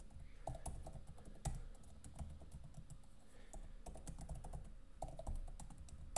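Typing on a computer keyboard: quick, irregular key clicks, with a louder click right at the end.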